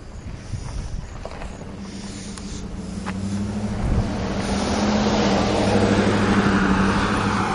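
A motor vehicle approaching and passing by. Its steady engine hum and tyre noise swell over several seconds and begin to ease off near the end.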